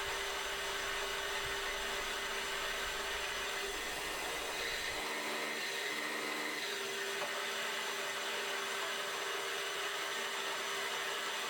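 Pillar drill's electric motor running steadily with a constant hum, nothing being drilled. A low rumble underneath stops about halfway through.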